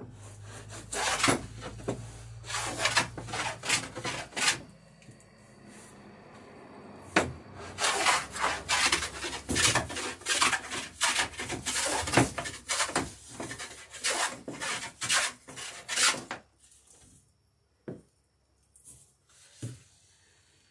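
Hand plane cutting shavings from a wooden dory plank in repeated strokes while trimming the gain at the plank's end. One short run of strokes, a pause, then a longer and faster run, followed near the end by a few light knocks.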